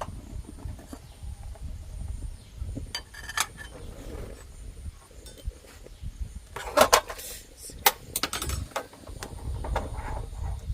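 Metal cooking pot and utensils clinking and knocking, with a cluster of sharp clanks about seven seconds in and a single clank just after. Under them runs a steady low rumble.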